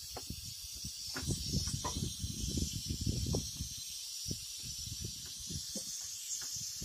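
Steady high hiss of compressed air escaping from a disconnected air-suspension line at a truck's leveling valve as the airbags deflate, with irregular low knocks and rumbles from hands and tools working at the fittings, busiest in the first half.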